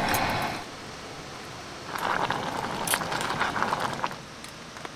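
Primus canister backpacking stove burning with a steady hiss that stops about half a second in. A second stretch of hissing with small crackles follows from about two seconds in and lasts about two seconds.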